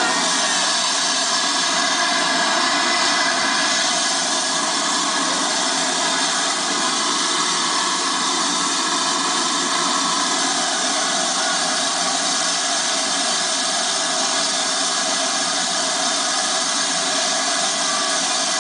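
Steady, continuous hiss of steam escaping from a standing steam locomotive around its cylinders, with no exhaust beats.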